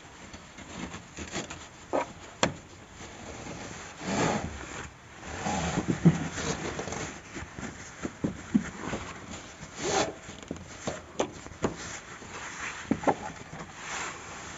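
Curtain fabric rustling and rubbing as it is handled and gathered onto a curtain rod, with scattered sharp clicks and knocks.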